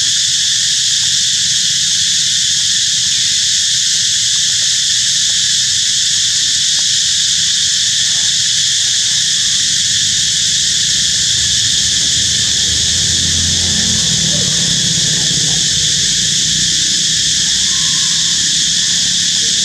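Loud, steady chorus of insects buzzing without a break. A low rumble swells briefly about two-thirds of the way in.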